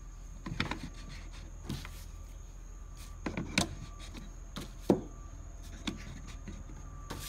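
Paintbrushes clicking and rubbing against the hanging rods and plastic sides of a painter's toolbox as they are hung and pushed into place: scattered light knocks, the sharpest about five seconds in.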